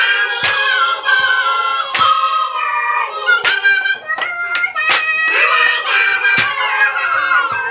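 A group of women's voices singing a traditional song together, with sharp claps keeping a slow beat about every second and a half.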